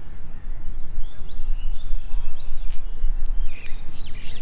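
Small birds chirping, a few short high rising chirps in the middle and a held high note near the end, over a loud, steady low rumbling noise.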